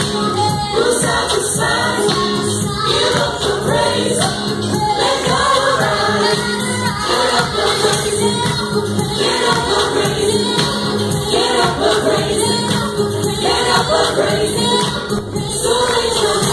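Church worship team singing a gospel worship song, several voices together over band accompaniment.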